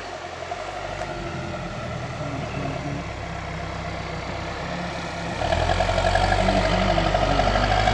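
Backhoe loader's diesel engine running steadily, then growing louder and heavier about five and a half seconds in.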